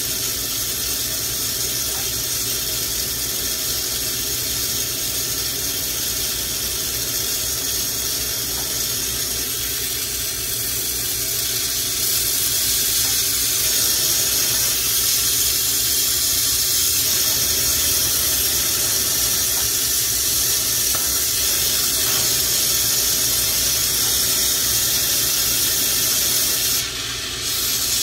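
A bench-mounted glassworking torch flame hissing steadily over a low hum, louder from about twelve seconds in, with a brief drop near the end.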